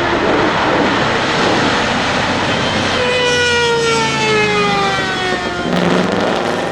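Mercedes-Benz W25's supercharged straight-eight racing engine running loud at speed. About halfway through, a strong engine note comes in and falls slowly in pitch as the car goes past, then breaks off near the end, leaving a lower rumble.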